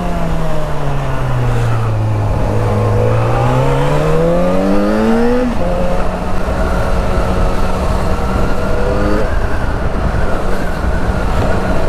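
Yamaha XJ6's inline-four engine heard from the rider's seat over wind noise. The engine note sinks as the bike slows, then climbs under acceleration for about three seconds and drops suddenly with a gear change about five and a half seconds in. It holds steady for a few seconds, then fades into the wind near the end.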